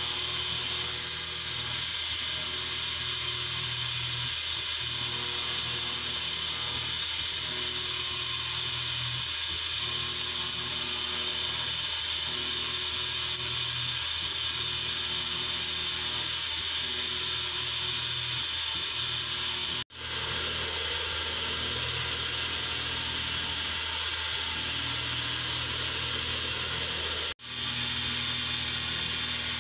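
Carbide end mill in a CNC milling machine spindle cutting 2017 aluminium: a steady, high-pitched cutting sound. It drops out briefly twice, about two-thirds through and near the end.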